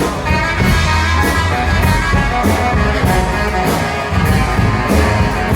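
Live low-rock band with baritone sax, bass and drums playing: deep sustained low notes over a steady drum beat.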